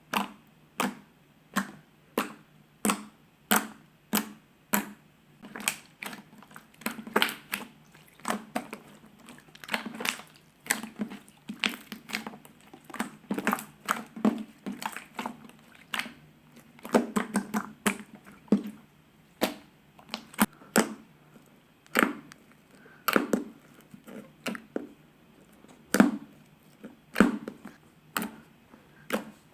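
Slime being squeezed and poked by hand, giving sharp clicking pops about one or two a second, unevenly spaced.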